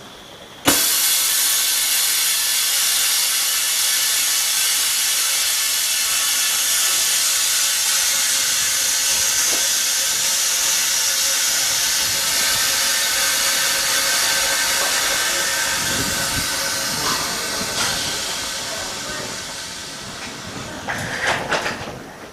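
OCA bubble remover machine venting its compressed air at the end of its pressure cycle: a loud hiss that starts suddenly, holds steady, then dies away over several seconds as the chamber empties. A few light knocks come near the end.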